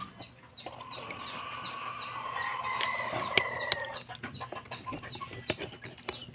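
Live chickens calling: one long drawn-out call from about one second in to about four seconds, over a run of short, high, falling peeps repeated several times a second. A few sharp clicks come through, the loudest about three and a half seconds in.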